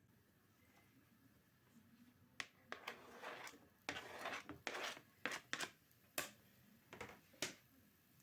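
Handling noises: a run of sharp clicks and short rustling sounds, starting a couple of seconds in and stopping shortly before the end.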